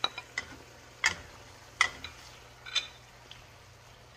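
Utensils and dishware knocking against a wok while vegetables go in and are stirred: a handful of sharp clicks and taps spaced up to a second apart, thinning out near the end.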